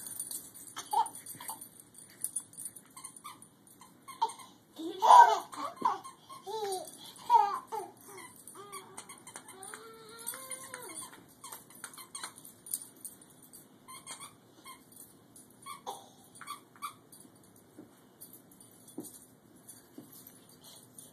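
Baby squealing and giggling, loudest about five seconds in, then babbling with sliding pitch around ten seconds in. Scattered light clicks and scuffles run under it.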